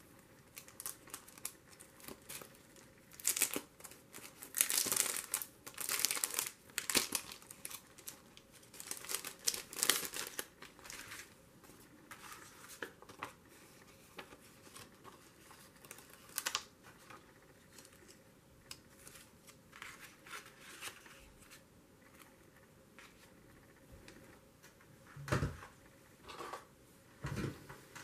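Paper and a plastic-sleeved packet of canvas stickers crinkling and rustling as they are handled, in irregular bursts over the first ten seconds or so, then quieter. There are two dull thumps near the end.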